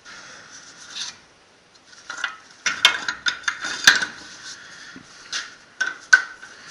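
Metal parts of a Jaguar XJ rear hub assembly scraping and clinking as gloved hands handle and turn them, with a run of sharp metallic knocks in the middle and a few more near the end.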